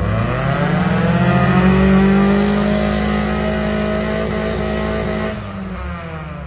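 Lada Niva's engine revving hard: the pitch climbs over about two seconds, holds at high revs, then eases off about five seconds in.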